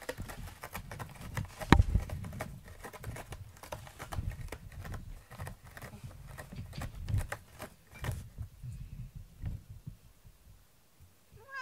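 A cat moving about on a corrugated-cardboard scratcher: scattered light taps and scuffs of paws on the cardboard, with one sharp thump about two seconds in.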